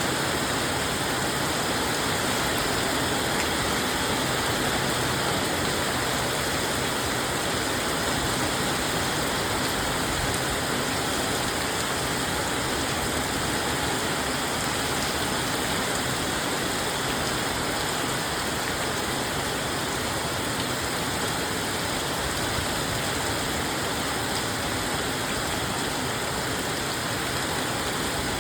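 Steady, unbroken rush of falling water, even throughout with no single drops or splashes standing out.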